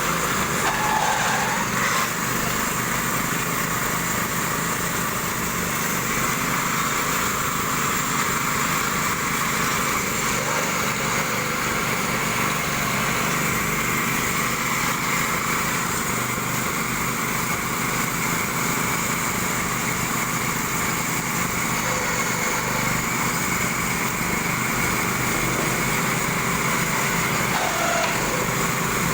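Small engine running steadily at a constant speed, powering bore-well drilling.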